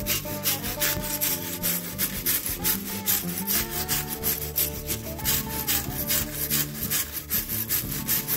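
Wire brush scrubbing rust off a cast brake caliper, in quick back-and-forth strokes, about three or four a second. Background music plays underneath.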